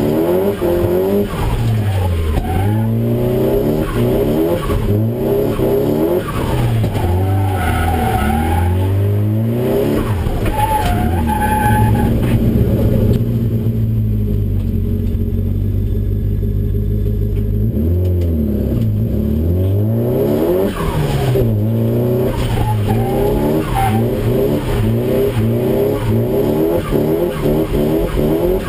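Nissan S13 drift car's engine heard from inside the cabin, revving up and down over and over through a drift run, with tyres squealing at times. Around the middle it runs steadier and lower for several seconds before the revving picks up again.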